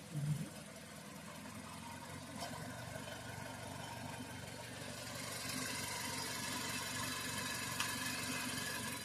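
Mazda CX-5 engine idling steadily while it warms up to operating temperature. There is a short thump just after the start, a sharp click or two, and a higher hiss that rises about halfway through.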